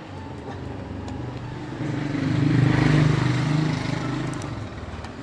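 A motor vehicle driving past: its engine hum and tyre noise swell to a peak about halfway through, then fade away.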